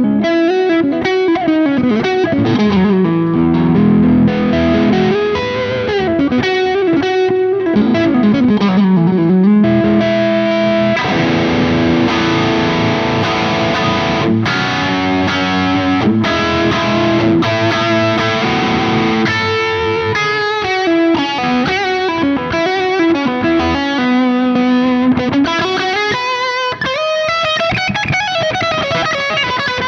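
Ibanez Universe UV7P seven-string electric guitar played through an amp, a continuous melodic lead passage with notes that bend and slide smoothly up and down in pitch.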